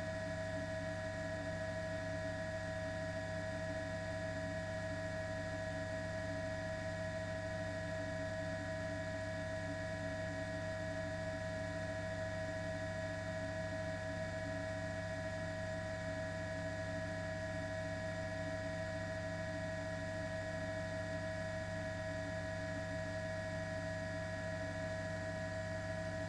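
A steady hum made of several fixed tones, low and mid-pitched, that never changes in pitch or level.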